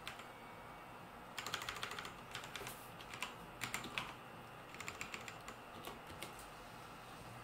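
Computer keyboard typing: three short bursts of rapid keystrokes.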